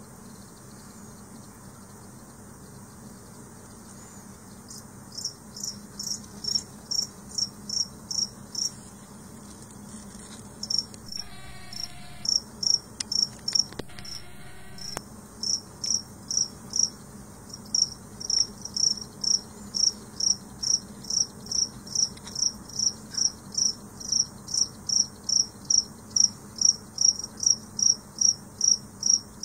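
A cricket chirping in a steady rhythm of about two and a half short, high-pitched chirps a second. The chirps begin a few seconds in and are broken near the middle by two brief bursts of noise.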